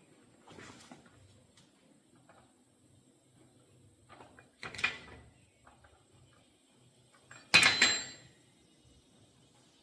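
Metal clattering as a chainsaw's chain and bar are handled during fitting: a faint rattle near the start, a sharper clatter about five seconds in, and the loudest clank, with a brief metallic ring, about seven and a half seconds in.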